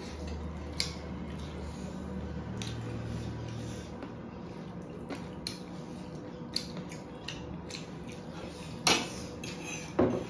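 Eating at a table: forks clicking and scraping on ceramic plates of noodles while fried chicken is torn apart by hand and chewed, with two louder clinks near the end.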